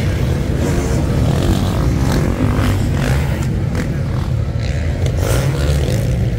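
Engines of several motocross bikes revving as riders race over sand jumps on a beach track.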